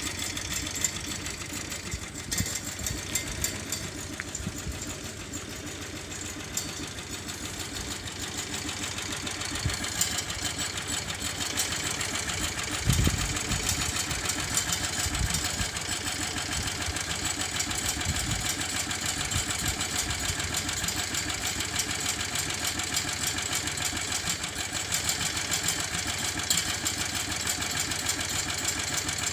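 Hakotrac Hako V 490 compact tractor's engine idling steadily.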